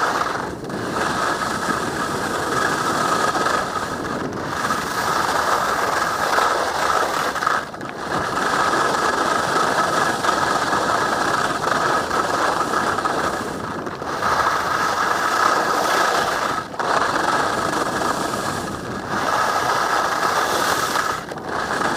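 Skis scraping and chattering over hard, firm snow while skiing down, a loud continuous rasp that dips briefly every few seconds.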